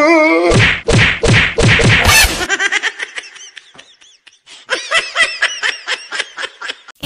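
Laughter in rapid, rhythmic ha-ha bursts, several a second: loud at first, dying down towards the middle, then breaking out again.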